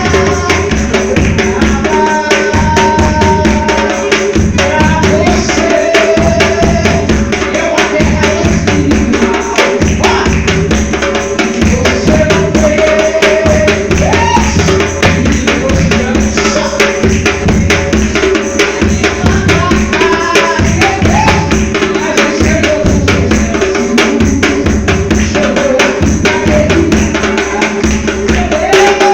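Music built on Brazilian hand percussion: a timbal (timbau) hand drum played in quick strokes over a marcação bass drum keeping the beat, with a melody running above them.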